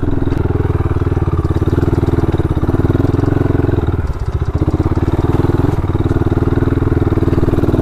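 Motorcycle engine running steadily while the bike is ridden, its firing pulses even, with a brief easing of the engine note about four seconds in.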